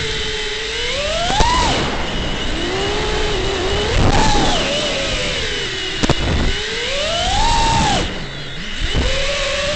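FPV quadcopter's brushless motors and propellers whining in flight, the pitch repeatedly rising and falling with the throttle over a rush of wind noise. A couple of brief sharp clicks cut through.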